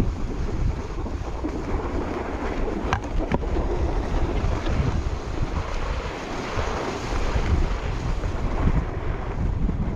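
Wind buffeting a chest-mounted GoPro's microphone at speed while a Coiler alpine snowboard carves groomed snow, its edge hissing and scraping through the turns. Two sharp clicks about three seconds in.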